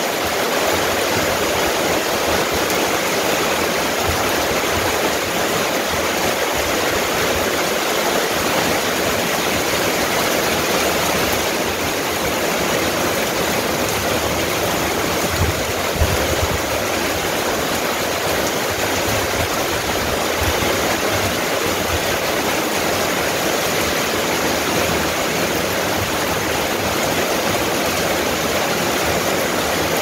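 Rain falling steadily, an even, dense hiss with no letup.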